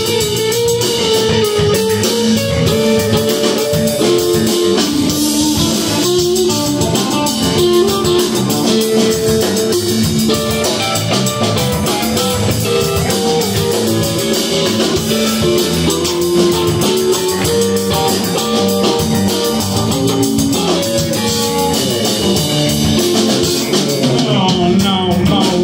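Live band of electric guitar, electric bass and drum kit playing an instrumental passage of a song, the guitar carrying the melody over a steady drum beat.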